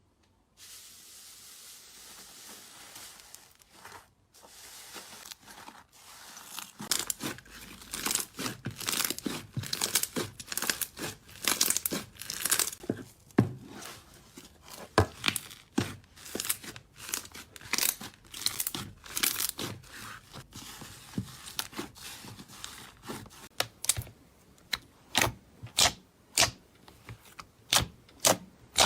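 Slime being squished and stretched, crackling and popping: a soft steady hiss for the first few seconds, then a dense run of sharp pops and crackles, giving way to more spaced-out, louder pops near the end.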